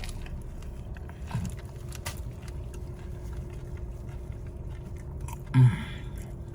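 A person chewing and biting a toasted meatball sub with soft, wet mouth clicks, with a short loud voice-like sound about five and a half seconds in.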